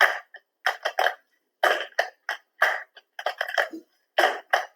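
Body percussion: a rhythm of short, sharp claps and slaps on the body, about a dozen hits in uneven groups that repeat.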